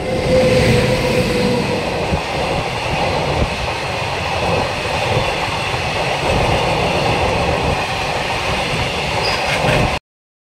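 Indian Railways express train running at speed on the line, heard from on board: steady rumble and wheel-on-rail noise with a thin whine in the first couple of seconds. The sound cuts off abruptly near the end.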